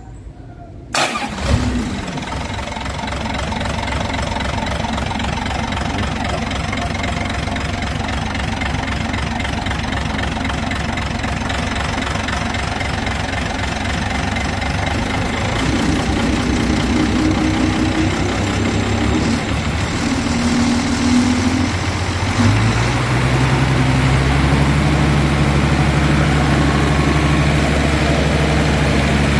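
Isuzu 6HH1 six-cylinder diesel engine of a screw vacuum pump skid, started with the key about a second in, then running steadily. A little past the middle, its speed steps up and it runs louder.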